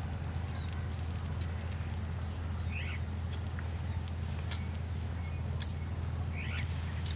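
Small wood fire crackling under a stone slab, with scattered sharp pops, over a steady low hum. A few short high chirps come about three seconds in and again near the end.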